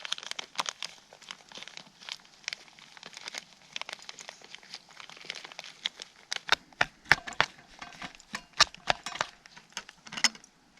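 Irregular crinkling and sharp clicks of food packaging and the dessert being handled, busier and louder in the second half.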